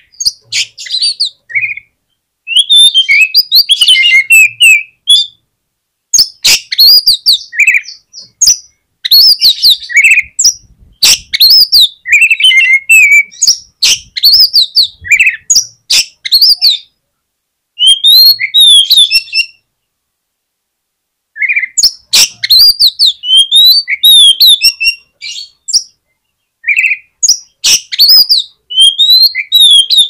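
Oriental magpie-robin (kacer) singing loudly in quick phrases of rising and falling whistles mixed with sharp clicking notes, with a pause of about two seconds roughly two-thirds of the way through.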